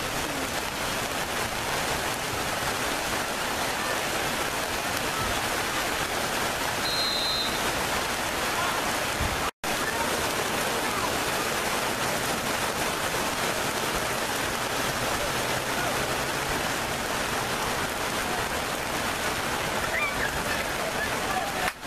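Steady hiss of rain, with faint voices under it; the sound breaks off for an instant near the middle.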